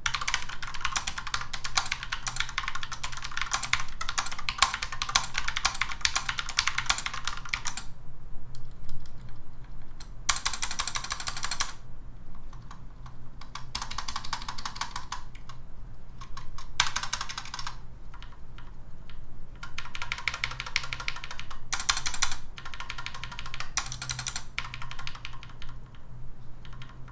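Typing on a Rapoo Ralemo Pre 5 wireless mechanical keyboard with black linear switches and round typewriter-style keycaps. A fast, continuous run of keystrokes lasts about eight seconds, followed by several shorter flurries of clicking with pauses between them.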